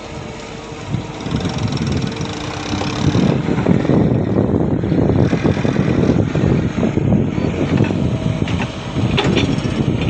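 An engine running with a rough, dense sound, getting louder about three seconds in.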